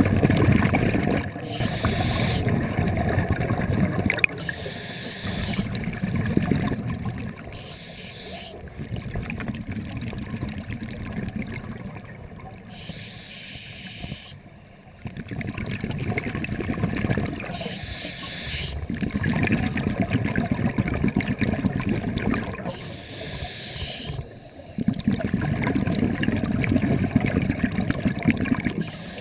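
Scuba diver breathing through a regulator, heard from inside an underwater camera housing. About six breaths: each is a short hissing inhalation followed by a longer rumbling, gurgling rush of exhaled bubbles.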